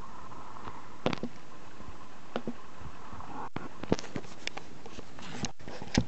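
A handful of sharp, irregular clicks and light knocks over a faint steady hum.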